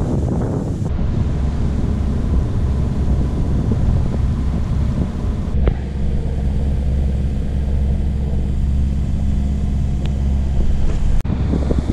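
A sailboat's auxiliary engine running with a steady low drone. The sound shifts abruptly about a second in, about six seconds in, and again near the end.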